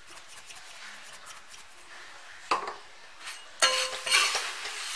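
Steel spoon stirring and scraping dry-roasted puffed rice in a metal kadai. There are faint light clicks at first and a single knock about halfway, then loud scraping and rustling with metal clinks from a little past three and a half seconds.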